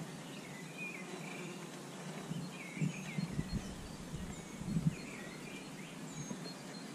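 Outdoor lakeside ambience: birds chirping with short, repeated calls, and a few low bumps of wind or handling on the microphone around the middle.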